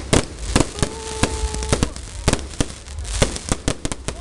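Aerial fireworks bursting: a rapid, irregular string of sharp bangs, several a second, over a low rumble.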